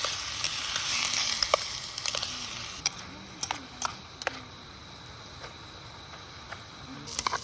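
Food sizzling in a hot pan, a dense hiss that dies down about two and a half seconds in, with scattered light clicks and taps from utensils throughout.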